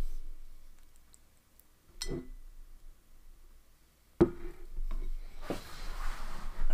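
Metal chopsticks clinking against a glass bowl while noodles are mixed in it. There are a few sharp clinks, one about two seconds in and another, louder, a little after four seconds in.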